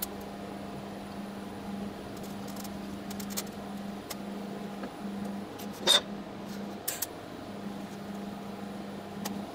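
TIG welding arc humming steadily as an elbow is welded onto the diffusion pump's backing-pump port. The hum cuts out briefly a few times, with scattered small clicks and one loud sharp crack about six seconds in.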